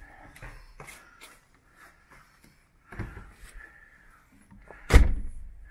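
Handling noise from a handheld camera carried out through a door: scattered clicks, rustles and knocks, with a firmer knock about three seconds in and a single loud thump about five seconds in.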